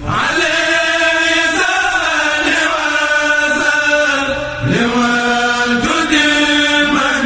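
A Mouride kourel chanting a khassida without instruments: several men's voices in unison, holding long notes that step up and down in pitch, with short breaths about four and a half and six seconds in.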